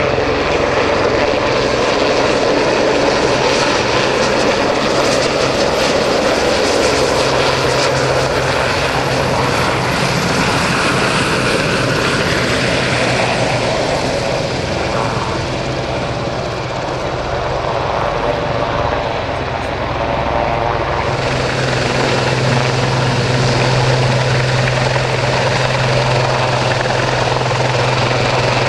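Westland Sea King helicopter flying past close by, its rotors and turboshaft engines running loudly and steadily. About two-thirds of the way through, the sound changes to a Westland Lynx helicopter hovering close by, with a steady low hum under the rotor noise.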